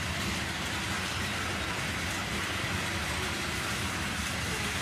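Freight train rolling past at close range: a steady noise of steel wheels on the rails, with no horn or separate clanks standing out.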